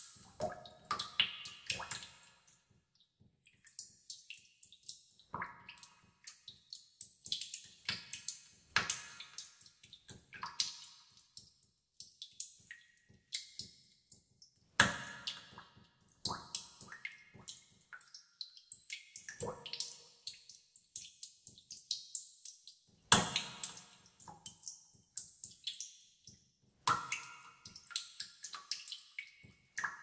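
Water droplets dripping into a pool in a cave. Irregular plinks come several a second, each with an echoing tail, and the loudest land about halfway through and again about three quarters through.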